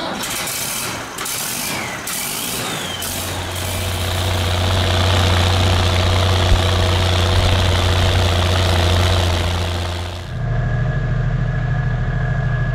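Ford TW25 tractor's six-cylinder turbo diesel starting and running, uneven for the first few seconds, then settling into a steady, louder run. About ten seconds in it changes abruptly to the lower, steady run of a small Kioti compact tractor's diesel engine.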